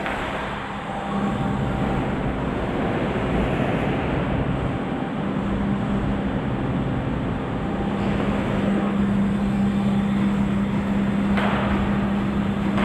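A motor running steadily: a constant low drone under a wash of noise.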